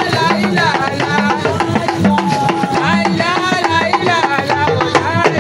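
Lively drum music with voices singing: many quick drum strokes, with a low drum note that bends up and down in pitch about once a second.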